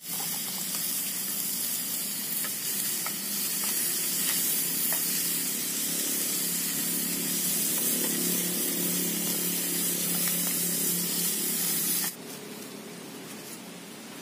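Spotted dove meat sizzling in a small pot over a portable butane canister stove, the burner hissing steadily, with a few light clicks of a utensil stirring. About twelve seconds in the sound drops abruptly to a fainter hiss.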